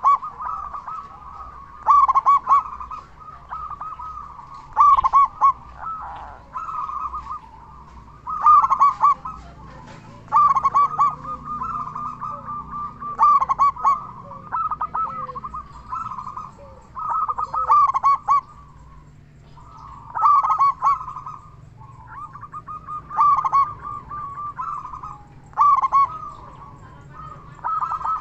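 Zebra dove (perkutut) cooing over and over: a phrase of quick notes running into a longer rolling coo, repeated roughly every two to three seconds.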